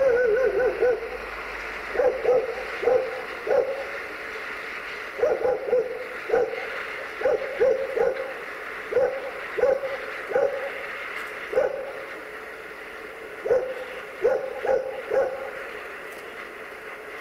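A dog barking over and over in short runs of two to four barks, a second or two apart, opening with a longer wavering call.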